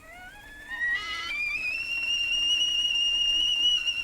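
Stovetop kettle whistling at the boil: steam forced through the whistle in the spout cap. The whistle rises in pitch as it starts up, then settles about a second and a half in into one steady, high, slightly wavering tone.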